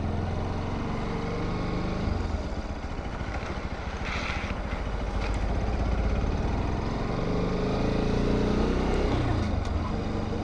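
Bajaj Pulsar RS200's single-cylinder engine running under way, its revs rising and falling as it is ridden, with a short hiss about four seconds in.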